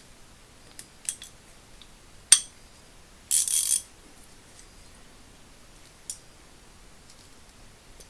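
Small steel ratchet parts clicking and clinking as the gear is dropped into the ratchet head during reassembly. There are a few sharp metallic clicks, the loudest about two seconds in, and a short half-second rasp a little after three seconds.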